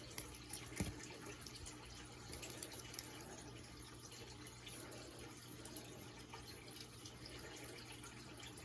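Faint scratching of drawing strokes on paper, with small scattered ticks, over a low steady hum.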